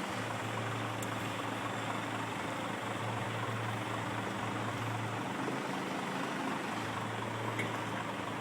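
Heavy trailer truck's engine running steadily: a constant low hum under a broad rush of mechanical and road noise.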